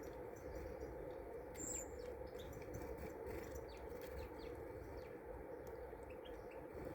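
Small garden birds giving short, scattered chirps, faint over a steady low background rumble.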